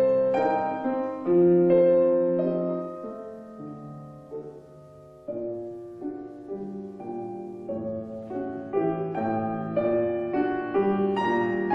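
Solo piano music from an 1864 Julius Blüthner piano: slow, soft held chords that die away to a quiet point about five seconds in, then pick up again with a new chord and more moving notes.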